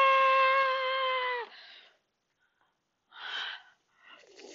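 A child's voice holding one long, high, play-acted scream that sinks slightly in pitch and breaks off about a second and a half in. After it comes quiet, with two faint, brief noises.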